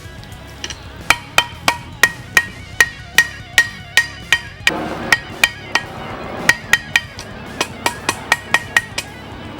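Hammer striking a steel spearhead on an anvil while forging its tip to a point, sharp ringing blows at about three a second with brief pauses.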